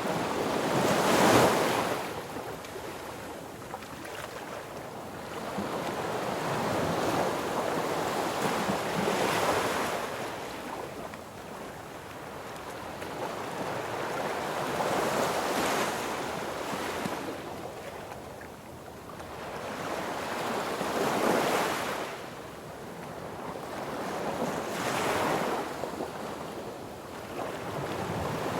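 Sea waves breaking on a beach, each surge of surf swelling and washing back, about five in a row.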